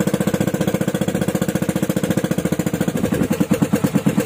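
Pump boat's engine running with a fast, even chugging beat, slowing slightly about three seconds in.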